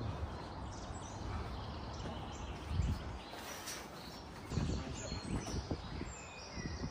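Small birds chirping in the surrounding trees, with footsteps and handling thumps on a steel mesh floor; the loudest thump comes about three seconds in and a cluster of them around four and a half seconds.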